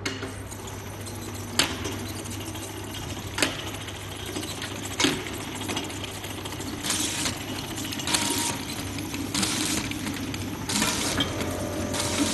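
Automatic bottle labeling machine running with a steady motor hum. Empty glass bottles clink sharply three times on the chain conveyor, then short hissing swishes come about every second and a half.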